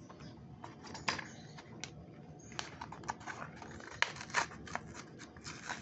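Clear plastic packaging tray and cardboard box of a Matchbox die-cast toy car being handled and pulled apart by hand, making irregular light clicks and crackles that grow busier from about halfway through.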